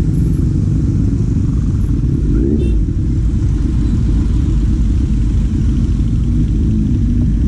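Four-cylinder engine running steadily on the move, under a heavy, continuous low rumble.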